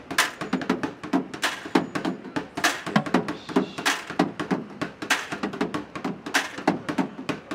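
Bucket drumming: drumsticks beating a fast, steady rhythm on plastic buckets, hollow thuds with louder, sharper cracks about once a second.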